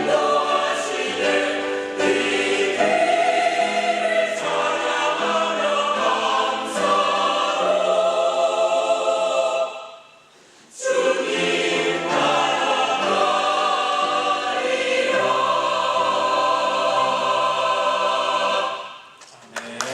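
Church choir singing a sacred anthem in full, held chords. The singing stops for about a second near the middle, resumes, and closes on a final chord that fades out. Applause starts right at the end.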